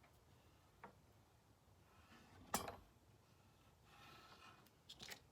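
Quiet handling of paper and craft supplies: a few faint rustles and small clicks, with one sharper tap about two and a half seconds in.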